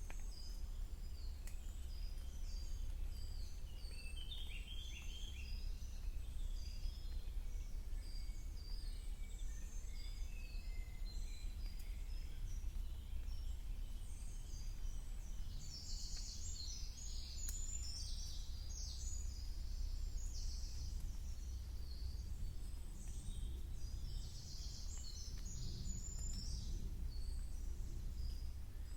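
Several songbirds singing and calling at once in a spring woodland chorus of short chirps and warbling phrases, busiest in the middle and again near the end, over a steady low rumble.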